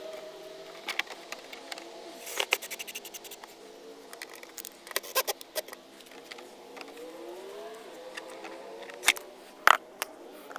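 DeWalt cordless drill run slowly at a plastic fender: a faint steady motor hum whose pitch drifts slightly upward, with scattered sharp clicks and taps.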